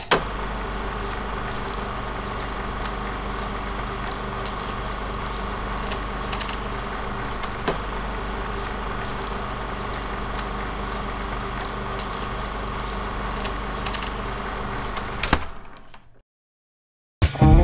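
Steady outdoor background hum with a constant low drone and a faint higher whine, a few faint scattered clicks, fading out and then cutting to silence near the end.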